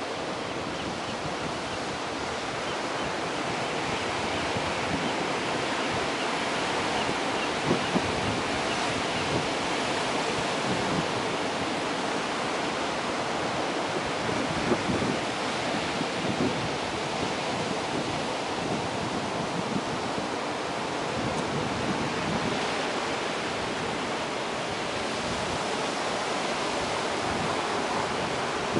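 Ocean surf breaking and washing over a rocky shore: a steady rush of waves, with a few brief low bumps of wind on the microphone.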